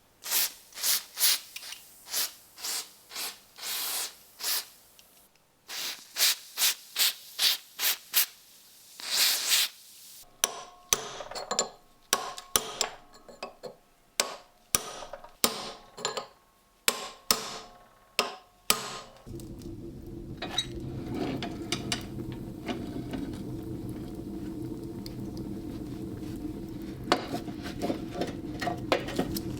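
Hand tool rubbing and scraping in quick strokes, about two a second, on a corroded World War I time fuse, the strokes changing character about a third of the way in. About two-thirds in, a steady machine hum starts.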